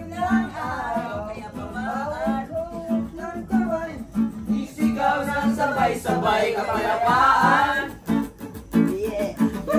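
Music: a song with guitar and a singing voice over a repeating low note pattern.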